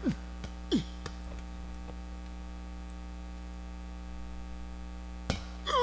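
Steady electrical mains hum, with two quick falling pitch glides about a second apart near the start and a single sharp knock about five seconds in.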